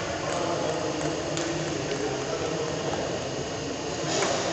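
Steady background hiss of a large indoor sports hall between rallies, with a few faint light clicks.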